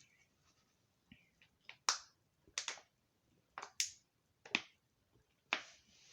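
Wet smacking clicks of a mouth chewing food close to the microphone, coming in pairs about once a second.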